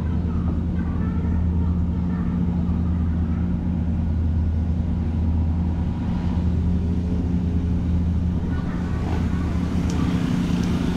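Steady low drone of a large ship's engines running: the Taihua ferry's engines.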